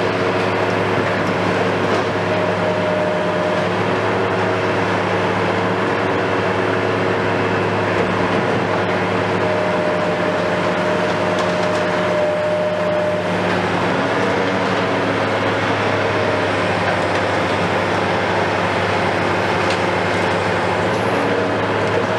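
Hitachi KMC 520 BTV long-reach demolition excavator's engine and hydraulics running steadily under load, a low drone with several held whining tones that shift in pitch as the arm moves.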